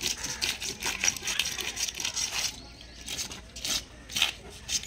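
Plastic fish scaler scraping the scales off a large catla fish, a run of quick rasping strokes with a short pause about two and a half seconds in.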